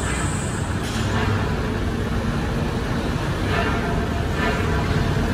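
Street traffic: a steady low rumble of passing vehicles and engines.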